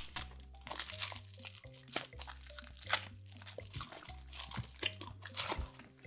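Plastic food wrappers crinkling and crackling as they are handled, with a drinking straw being pulled from its wrapper, in many short crackles. Background music with steady low notes plays throughout.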